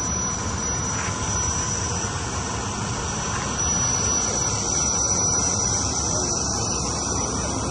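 Jet aircraft engine running: a steady rush of noise with a thin, constant high-pitched whine over it.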